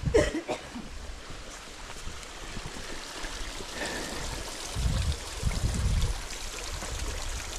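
Small stream of water trickling over rocks, a steady rushing hiss. A short, loud pitched sound right at the start, and low rumbles from about five seconds in.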